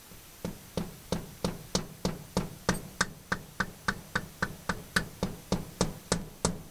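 Hammer tapping steadily on a punch, about three strikes a second, to drive a small plate out of the bottom of a David Brown 990 tractor's Selectomatic hydraulic valve chest.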